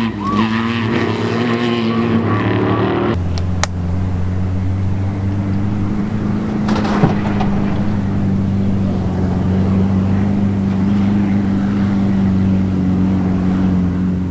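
The tail of a song cuts off about three seconds in, giving way to an off-road race vehicle's engine running at a steady, unchanging pitch, a constant drone.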